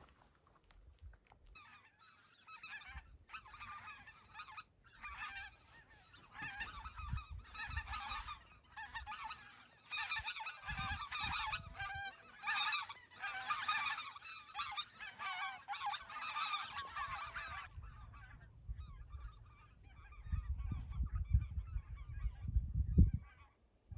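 A flock of birds calling: many short, overlapping calls for about fifteen seconds that then thin out. Low rumbling thumps come near the end.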